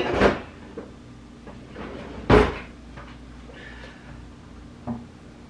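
Kitchen cupboard door being opened and shut: a knock at the start, a loud bang about two seconds in, and a faint knock near the end.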